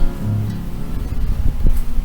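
Acoustic guitar background music, a low note sounding early on and the notes dying away, over a steady low rumble.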